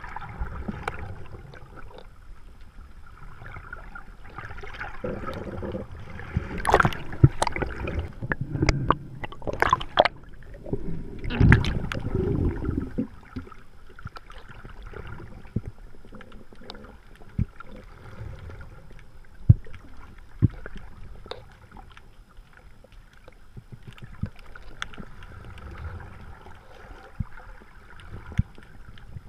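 Muffled underwater noise picked up by a camera in its housing, with irregular gurgling bursts, loudest about a quarter to half way through, and scattered sharp clicks.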